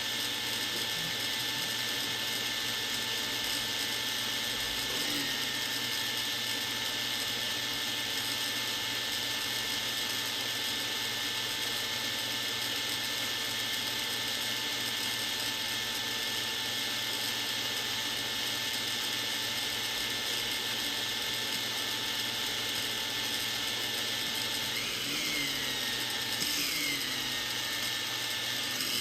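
Hubsan H501S drone's brushless motors spinning on the bench with a steady high whine, the pitch dipping briefly about five seconds in and twice more near the end. The motors stay spun up without responding to the controls: they throttle up but won't throttle back down.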